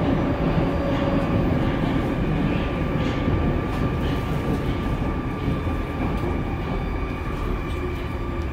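Moskva-2020 metro train running and slowing as it pulls into a station, heard from inside the car: a steady rumble with a faint steady high tone, fading gradually.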